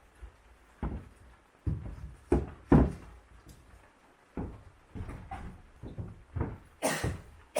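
A series of irregular knocks and thumps, about a dozen, on wood, the loudest near three seconds in and near the end.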